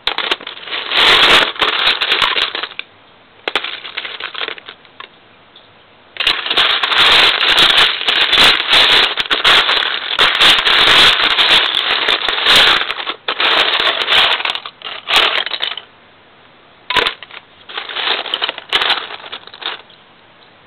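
Loose plastic Lego bricks clattering and rattling as a hand rummages through a pile of them. The clatter comes in several bursts with short pauses, the longest lasting about ten seconds.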